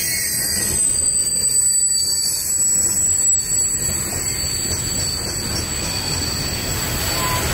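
Freight train hopper cars rolling past on the rails with a steady rumble, their wheels giving a continuous high-pitched squeal.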